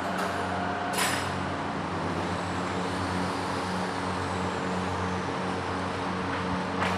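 A steady low machine hum over a dense hiss, broken by two sharp clicks, one about a second in and one near the end.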